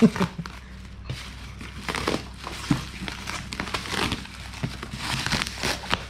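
Bubble wrap being pulled and crumpled off a cardboard box by hand, crinkling and crackling on and off.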